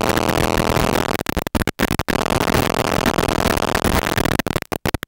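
Static hiss on the audio of a 5.8 GHz analog FPV video link that is losing signal. It cuts out in short gaps from about a second in, and more and more often near the end.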